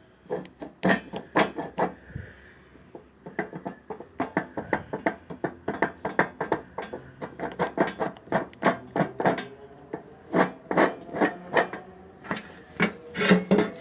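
Rapid, uneven series of sharp knocks and clicks, a few a second with two short lulls, from an automatic washing machine's transmission being worked on by hand.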